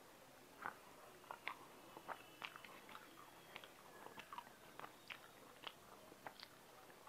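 Close-miked mouth sounds of a person eating rice and curry by hand: faint wet chewing with a string of soft clicks and lip smacks, about two a second and irregular.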